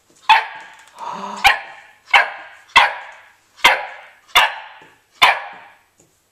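Old English Sheepdog puppy barking for its food: about seven sharp yaps in a row, a little under a second apart.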